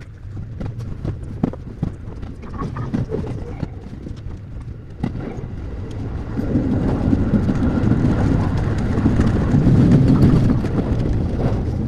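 JR Sagami Line electric train running on the rails: scattered sharp clicks and knocks at first, then a low rumble that grows louder from about six seconds in.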